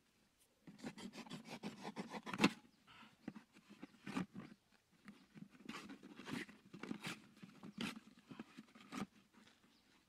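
Hands handling and fitting small parts into a plastic loudspeaker frame set in the ground: a quick run of small clicks and scrapes, ending in a sharper knock a little before halfway, then scattered taps and scrapes.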